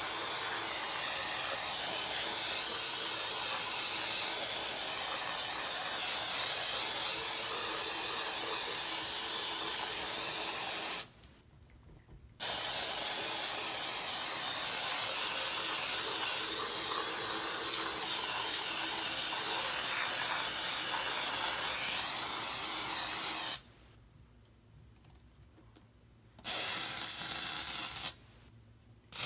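Aerosol can of shaving-cream foam spraying in long steady bursts: one of about eleven seconds, a short break, another of about eleven seconds, then a brief burst near the end.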